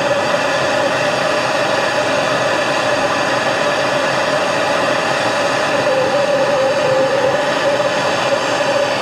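Gas torch burning with a steady hiss and a held hum, its blue flame heating a motorcycle shift shaft joint in a lathe chuck so the tight-fitting parts can be pushed together. The flame is shut off suddenly at the very end.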